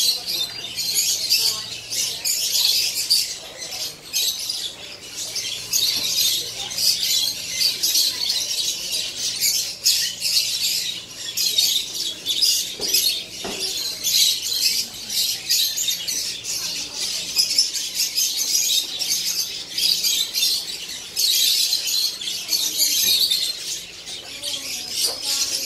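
Many small birds chirping and chattering together in a dense, unbroken din.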